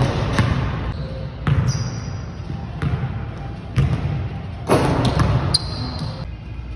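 Basketball bouncing on a hardwood gym floor, sharp bounces roughly a second apart during dunk attempts, with two brief high sneaker squeaks on the floor.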